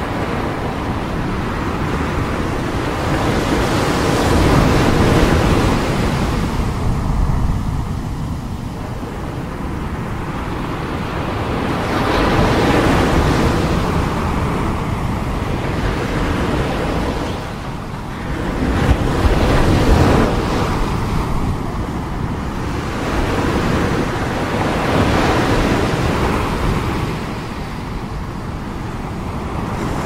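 Ocean surf: waves breaking close to shore and washing up the beach. The sound swells with each breaker, about every six to seven seconds.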